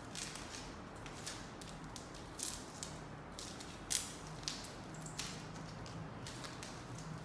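Light, irregular clicks and taps from the freshly restrung and regripped badminton racket being handled, with no rattle heard. The loudest click comes about four seconds in.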